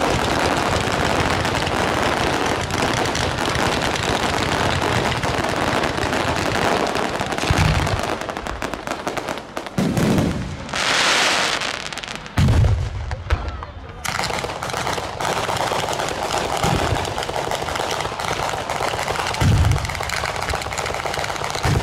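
Italian ground fireworks battery (batteria alla bolognese) firing: a dense, continuous crackle of rapid bangs, broken by several heavier booms, with a short rushing hiss about halfway through.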